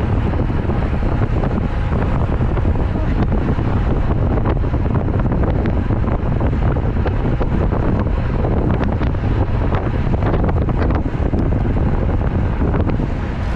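Strong wind buffeting the microphone of a camera on a road bike being ridden into a headwind: a loud, steady, deep rush of wind noise.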